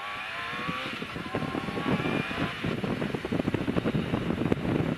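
Yamaha FZR 600 inline-four engine accelerating, its pitch rising through the first second, then wind rushing and buffeting the helmet microphone as speed builds.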